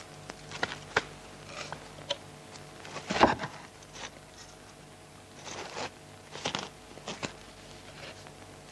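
Irregular crunching and scraping sound effects, a dozen or so short ones with the loudest crunch about three seconds in, over a faint steady hum.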